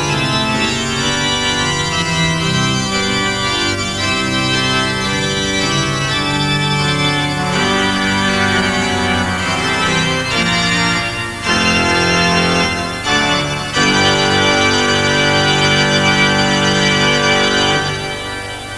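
Organ music playing long held chords, fading out near the end.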